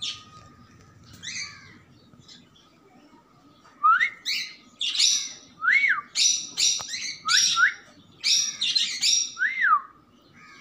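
Small caged pet birds chirping and calling: a few quiet calls at first, then from about four seconds in a rapid run of loud chirps mixed with short whistles that rise and fall.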